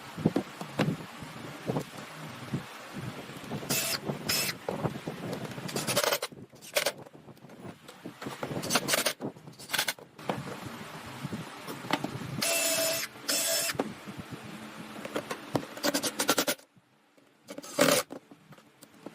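Woodworking tool noise: short bursts of power-tool running and cutting, mixed with knocks and clatter of wood being handled, stopping and starting abruptly.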